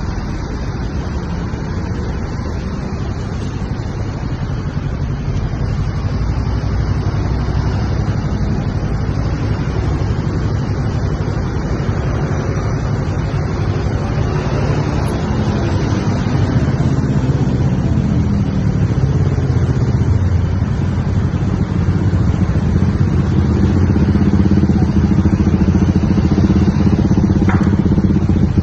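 Bus engine and road noise running steadily. The engine note slides down in pitch around the middle, and the sound grows louder with a stronger engine drone near the end. No telolet horn tune stands out.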